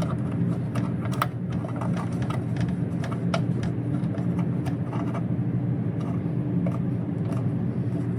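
Light clicks and scrapes of the case screw on a small desktop computer being tightened by hand, over a steady low hum.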